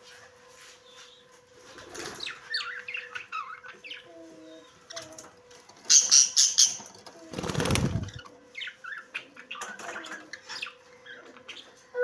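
Caged parrots giving short chirps and calls. About six seconds in comes a burst of wing flapping, then a loud low rustle just after.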